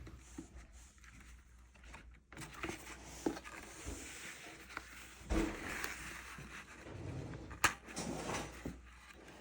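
Soft rustling and light taps of watercolour paper sheets being handled and slid under a journal's elastic band, with one sharper click about three-quarters of the way through.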